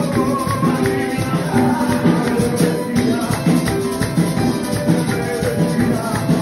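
Live upbeat Latin-style praise music from a church band, with shaken rattling percussion keeping a steady beat under pitched instruments.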